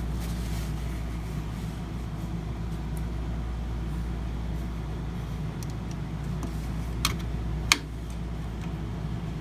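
Steady low hum, with two sharp clicks a little after the seven-second mark.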